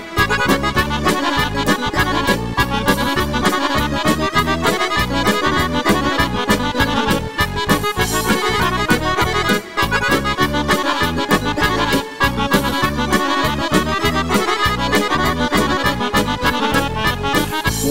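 Instrumental intro of a Serbian folk song: an accordion plays the lead melody over a steady, quick beat.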